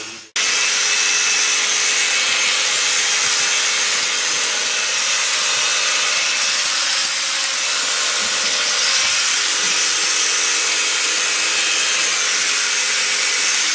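Electric sheep-shearing clipper running steadily as its handpiece cuts through a sheep's fleece: an unbroken hissing buzz with a steady high whine, starting after a very brief silence.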